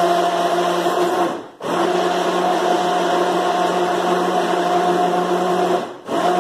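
Kitchen blender motor running loudly and steadily, blending the passion fruit mousse mix of condensed milk, cream and passion fruit juice. It cuts out briefly about a second and a half in and again near the end, restarting each time.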